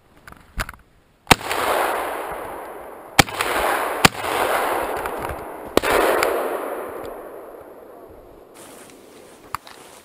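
Four shotgun shots over about five seconds, the first about a second in. Each shot is followed by a long rolling echo that fades over a second or two.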